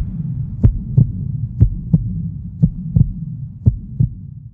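Heartbeat sound effect: paired low thuds about once a second over a low hum, growing fainter toward the end.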